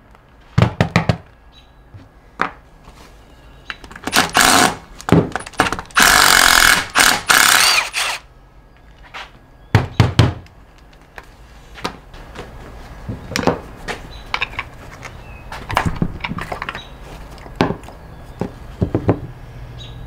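A Milwaukee cordless impact hammering transfer-case housing bolts loose, in bursts of about a second, the longest and loudest between about 6 and 7.5 seconds in. Metal clinks and knocks from parts and tools being handled come in between.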